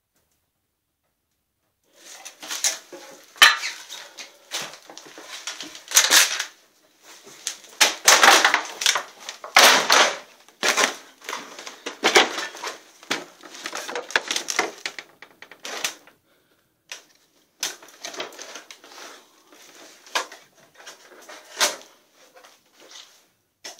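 Irregular crunching, clattering and knocking of footsteps and debris being disturbed, starting after about two seconds of silence and thinning out into scattered knocks in the second half.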